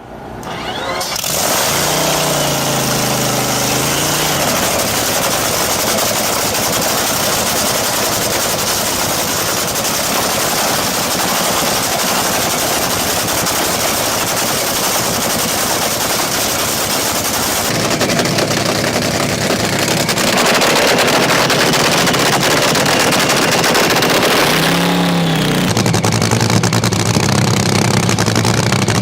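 Powerboat engine running under way with heavy rushing noise; its pitch rises a couple of seconds in, and about 25 s in it glides down to a steadier, lower engine hum.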